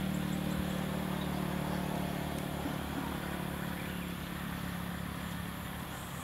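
A steady, low motor-like drone with a rapid low pulsing, slowly fading.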